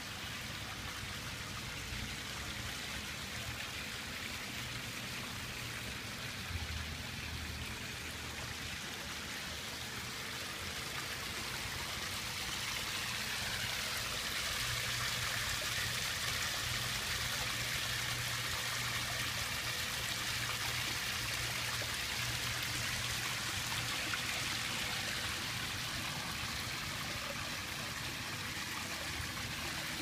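Koi pond waterfall splashing steadily, water driven by a 3000 gph pump spilling from clay pots down a rock wall into the pond. It grows louder about twelve seconds in and stays so.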